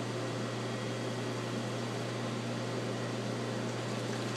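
Steady machinery hum: a constant low drone over an even hiss, with nothing starting or stopping.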